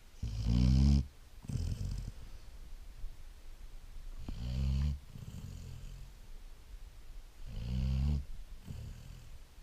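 Great Dane puppy snoring in its sleep: three loud snores about three and a half seconds apart, with softer breathing sounds between them.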